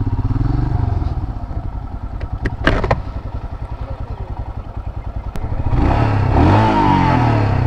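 Royal Enfield Himalayan's single-cylinder engine running at low speed with a steady, even beat as the bike rolls slowly. A couple of sharp clicks come about two and a half seconds in, and from about six seconds in the engine noise grows louder, with revs rising and falling.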